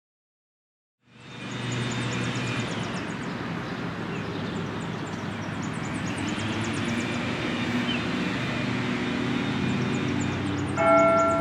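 Steady traffic noise from a busy road, with faint high chirps running through it. Near the end the bell tower's bells begin to ring, a clear struck note with a long ring.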